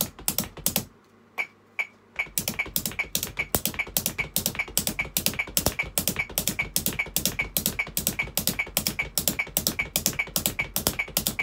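Red bundle sticks striking a Gretsch rubber practice pad, mixed with the drummer's feet thumping on the floor, in a steady coordination pattern of feet and alternating hands. A few strokes, a short pause, then from about two seconds in a fast, even stream of taps at roughly four to five a second.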